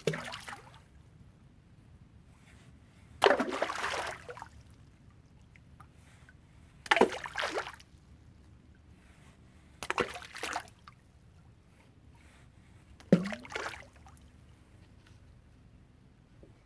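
Small stones thrown into water one at a time: five splashes about three seconds apart, each a sudden plop with a short spray of splashing after it. The first and last end on a brief falling bloop.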